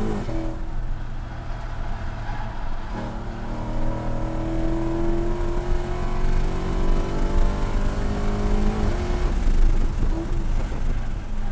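Lexus IS F's 5.0-litre V8 at full throttle, heard from inside the cabin. The engine note climbs in pitch, drops suddenly about three seconds in at an upshift and climbs again, then falls away about nine seconds in as the driver lifts for braking.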